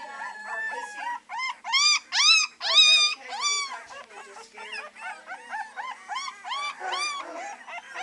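Several three-week-old beagle puppies baying at once, in high, overlapping cries that each rise and fall in pitch. The cries are loudest between about one and four seconds in.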